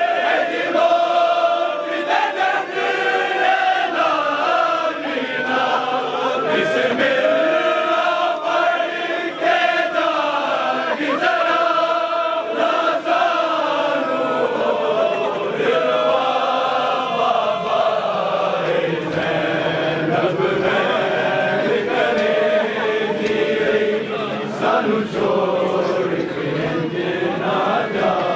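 A chorus of men chanting a noha (mourning lament), with the slaps of hands beating on chests (matam) roughly once a second.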